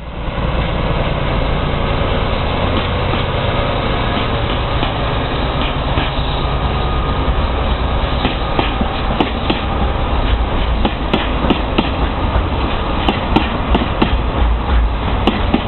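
Diesel-hauled freight train pulling away: the locomotive's engine rumbles steadily while the wheels click over rail joints, the clicks growing more frequent in the second half as it gathers speed.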